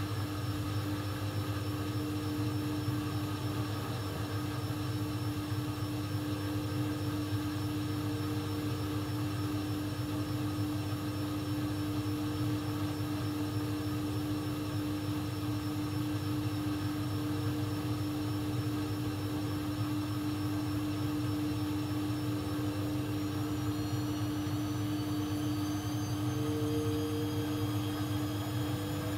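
AEG Lavamat 1400 washing machine running with a steady motor hum and drum rumble. Near the end a high whine starts rising in pitch as the motor speeds up.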